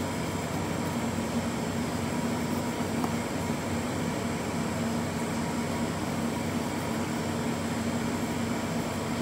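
A fan-type appliance humming steadily, with a constant low tone running through it.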